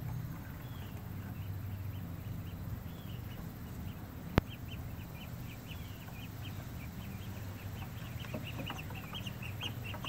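Baby ducks peeping: many short, high calls, coming thicker in the second half, over a steady low hum. A single sharp click a little over four seconds in.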